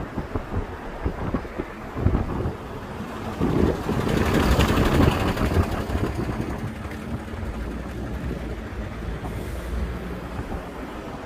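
Street ambience with wind rumbling on the microphone, and a vehicle passing on the road, its tyre hiss swelling about four to six seconds in.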